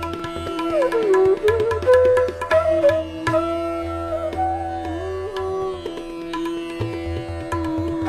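Background instrumental music in an Indian classical style: a held drone under a sliding melodic line, with bursts of quick drum strokes about a second in and again near the end.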